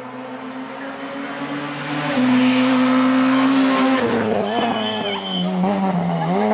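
Rally hatchback approaching under full throttle, its engine note stepping up and getting louder about two seconds in. It then drops and wavers as the car slides past through the bend, with the tyres squealing briefly.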